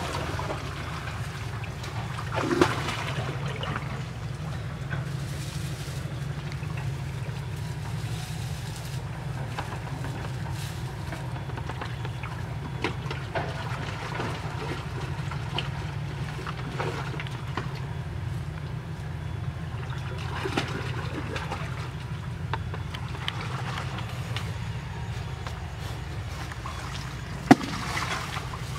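Muddy ditch water sloshing and splashing as a person wades through it, over a steady low rumble, with a sharp click near the end.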